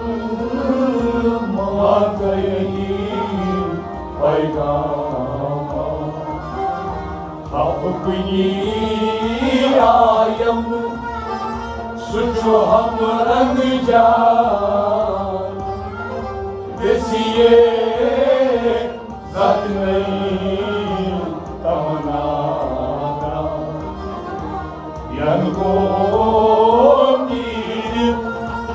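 Kashmiri Sufiyana kalam: a man singing a devotional melody with harmonium, a bowed string instrument, and a clay pot drum struck by hand.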